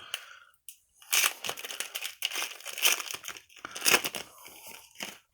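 Wrapper of a trading card pack crinkling as it is torn open and handled: a dense crackling run starting about a second in and dying away near the end.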